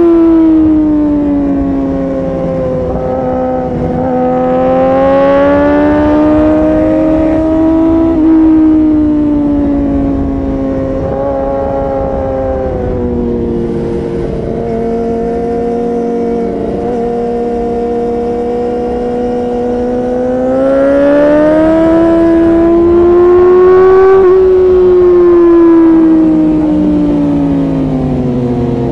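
Yamaha R6's inline-four engine running through an Akrapovic titanium exhaust, heard from the rider's seat at speed. The revs rise and fall smoothly, with a short sharp rise about eight seconds in and a long climb in pitch a little past the middle.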